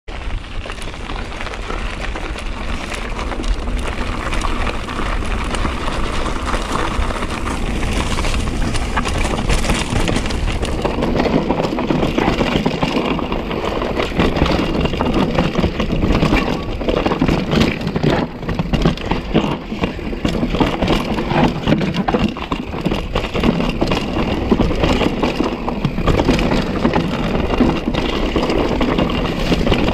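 Mountain bike riding a rough technical trail, heard from an on-board GoPro: tyres rolling over dirt and rock with the bike rattling and clattering, busier and louder from about ten seconds in.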